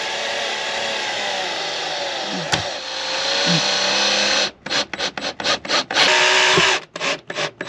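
Cordless drill driving a screw up through a shade mounting bracket into the cabinet. The motor runs steadily under load for about four and a half seconds. It is then pulsed in a string of short bursts, with one longer run near the end.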